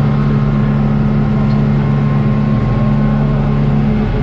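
Speedboat engines running steadily at a constant pitch, loud and unchanging.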